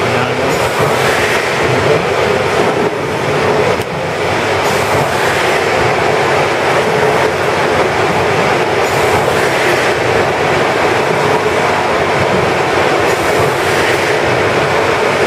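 Large triple-expansion steam pumping engine running, a loud, continuous mechanical clatter and hiss that swells about every four seconds.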